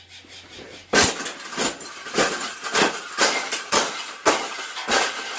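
Repeated sharp metallic strikes with a little ringing, about two a second, starting about a second in: a wire bird cage being hit and broken apart.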